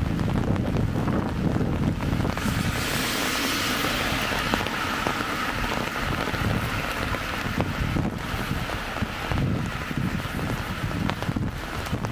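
Light rain hissing steadily, with wind buffeting the microphone in low gusts. The wind rumble is heaviest for the first couple of seconds, then the rain hiss comes up.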